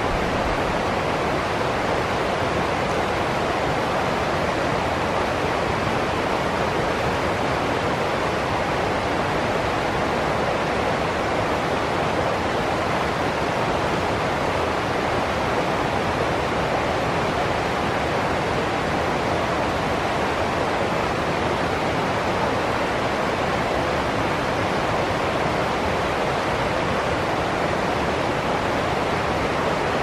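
Water rushing over rocks in a small stream's rapids: a steady, even rush.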